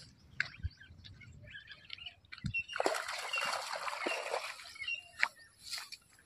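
A fish splashing and churning at the water surface at the end of a fishing line, for about a second and a half starting near three seconds in. A few short, faint bird chirps are heard around it.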